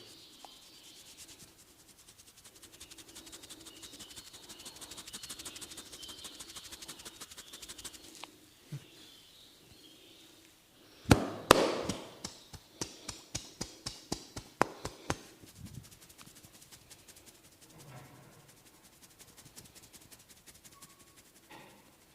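Head massage on hair and scalp: hands rubbing and scratching through the hair with a fast, dry rustle. About halfway through comes a quick run of sharp cracks, about four a second, the first ones loudest, lasting a few seconds.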